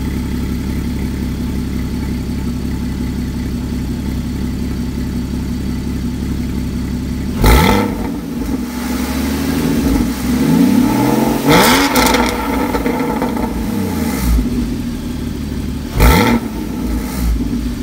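Porsche Cayman 981 GT4's 3.8-litre flat-six, warmed up, heard at its twin centre exhaust tips: a steady idle for about seven seconds, then several quick throttle blips, each rev rising and dropping straight back to idle.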